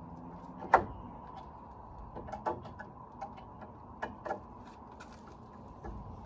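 A few sharp clicks and knocks from handling a door closer and its fittings, with one loud click about a second in and softer taps later.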